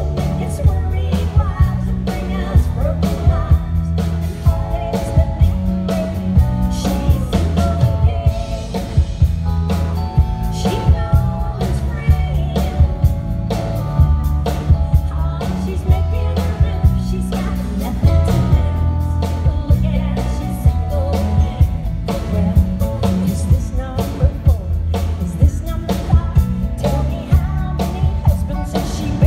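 A live country band plays a song, with a woman singing lead into a microphone over a drum kit keeping a steady beat, bass and guitar.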